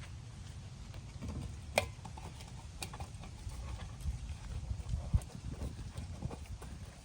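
Scattered clicks and light knocks of metal parts being handled as the gas water heater's parts are fitted back together, with a sharp click about two seconds in, over a low steady rumble.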